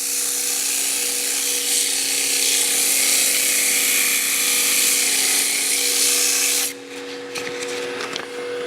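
Sandpaper, 100 grit, held against a wooden spindle turning on a wood lathe, a steady hiss of abrasive rubbing on the spinning wood. The paper comes off about seven seconds in, leaving the lathe's steady motor hum.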